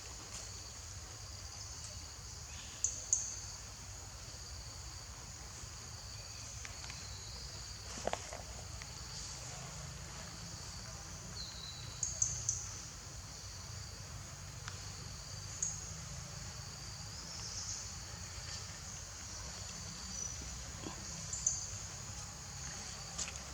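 Steady high-pitched drone of insects in an outdoor chorus, with a handful of short, sharp high chirps scattered through it and a low rumble underneath.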